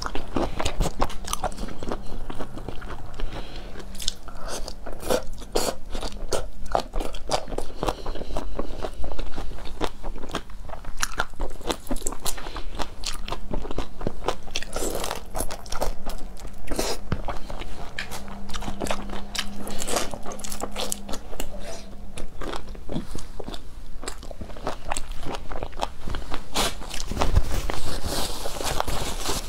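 Close-miked eating sounds: marinated raw shrimp being peeled by hand and chewed, with many wet clicks, crunches of shell and smacking. Near the end a paper tissue rustles as hands are wiped.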